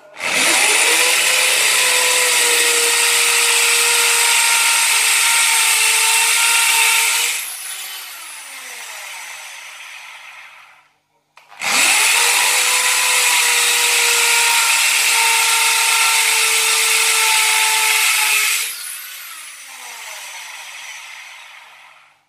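Corded electric drill boring into a wall. Twice it spins up, runs steadily at full speed for about seven seconds, then is let off and winds down with a falling whine.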